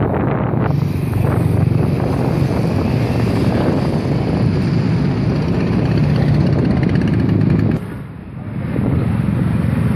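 Road traffic, cars and motorcycles running past in a steady low rumble. The sound drops away briefly about eight seconds in, then the traffic noise comes back.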